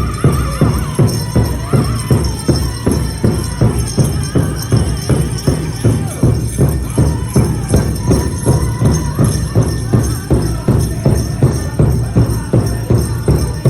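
A powwow drum group: a big drum struck in a steady, even beat, about two to three beats a second, with singers' voices rising above it at times. Metallic jingling, typical of bells or jingle cones on dancers' regalia, goes with the beat.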